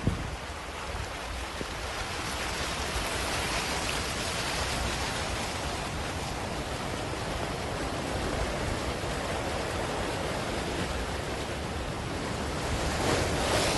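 Rushing floodwater: a steady wash of water noise that swells a little a few seconds in and again near the end, with a single sharp click at the very start.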